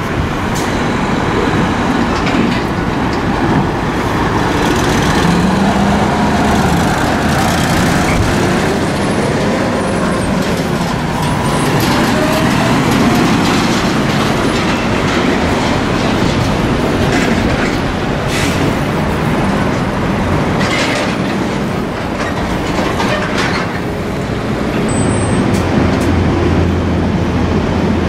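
Heavy diesel trucks hauling container trailers go past with engines running and trailer frames rattling and clanking, a continuous mix of traffic noise with engine pitch rising and falling now and then.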